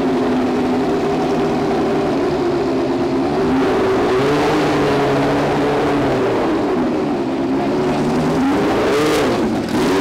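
Historic Formula 1 racing car engine running at a fast, slightly uneven idle, with a quick throttle blip near the end that sends the pitch up and back down.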